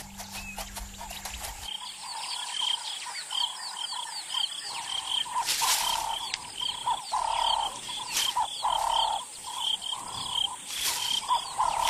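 Wild natural ambience: many small animals calling, with short high chirps repeating a few times a second, some sliding down in pitch, each paired with a lower call. Over it runs a steady high hiss, with three brief rushes of noise.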